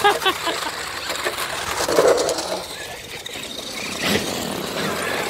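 Electric radio-controlled trucks driving on concrete: motor whir and tyre noise, with a sharp knock about four seconds in.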